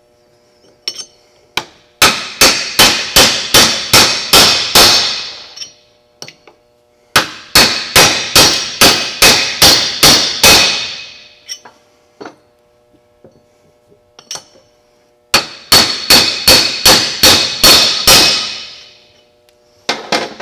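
A hammer strikes a punch to drive wheel studs into an aluminum leveling-kit spacer. There are three runs of about nine quick blows each, roughly three a second, each blow ringing metallically.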